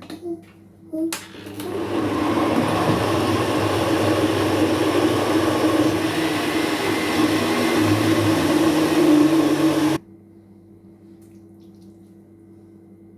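Electric blender running for about eight seconds, puréeing cooked vegetables into a smooth baby soup, then cutting off suddenly. A few clicks come just before it starts.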